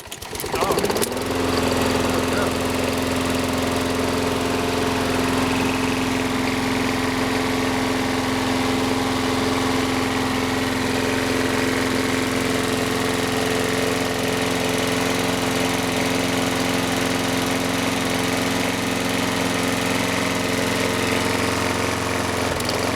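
Sears Craftsman walk-behind mower's Briggs & Stratton single-cylinder engine catching from a pull start and revving up within the first second, then running steadily and smoothly. It is running on a replacement spark plug after the old plug was found wet. Its pitch dips briefly near the end.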